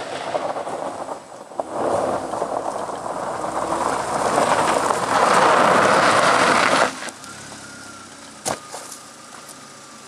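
Daewoo Lanos driving up a gravel road, its tyres crunching on the loose gravel, growing louder and cutting off sharply as the car stops about seven seconds in. After that the car runs quietly, with one sharp knock about a second later.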